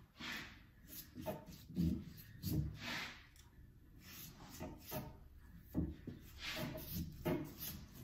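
Half-inch brush spreading contact adhesive along the edges of wooden snooker cushion strips: irregular scratchy brush strokes, with a few light knocks on the wood.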